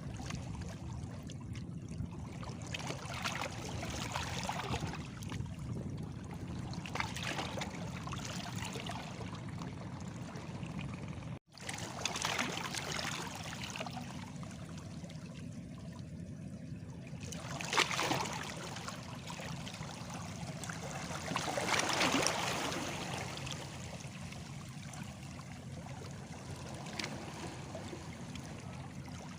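Small sea waves lapping and splashing against stones, each wash swelling and falling back every few seconds over a steady wash of water. The sound drops out for an instant about eleven seconds in.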